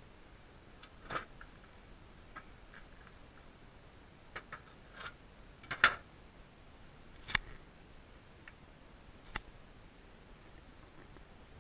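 Sparse, light clicks and taps, about eight in all at uneven intervals, the loudest a little before halfway, over a faint low hiss.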